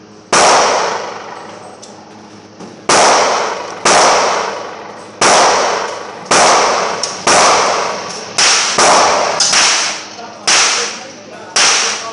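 Gunshots from other shooters at an indoor range: about eleven sharp reports at uneven gaps of roughly a second, each loud enough to overload the microphone and dying away in a short echo.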